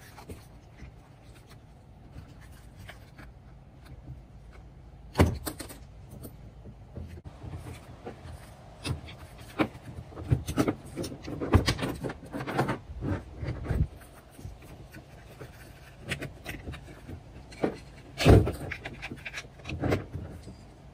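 Hobie Mirage pedal drive being taken apart by hand: the drum is worked off the spine assembly, with scattered clicks, knocks and clatter of plastic and metal parts. A sharp knock comes about five seconds in and another near the end, with a busy run of clatter in between.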